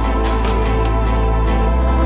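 Background music: sustained chords over a deep, steady bass note that moves to a new note near the end.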